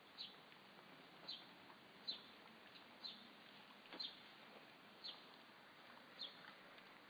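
A small bird calling, a single short high chirp that falls in pitch, repeated about once a second, over a faint hiss.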